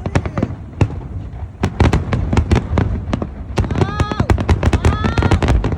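Fireworks going off in a dense, rapid run of sharp bangs and crackles, getting thicker about halfway through. A voice calls out twice over them in the second half.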